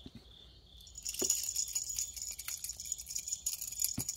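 Kittens scrambling and pouncing on a fabric mat after feather wand toys: soft rustling with light scratchy taps and clicks, starting about a second in.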